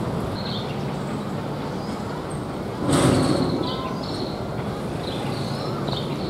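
Sheet-metal gate leaf clattering as it is swung open, one short loud rattle about three seconds in, over a steady low hum.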